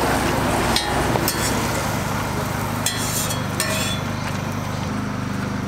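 Metal spatula clicking and scraping against a flat griddle as toast sandwiches are shifted, a few sharp clinks over a steady low mechanical hum.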